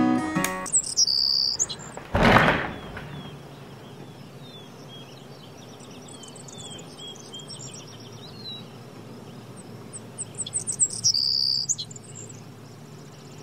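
Outdoor birdsong: small birds chirping, with one bird singing a loud, bright phrase about a second in and the same phrase again near the end. About two seconds in, a short loud rush of noise. Guitar music from a small radio cuts off at the very start.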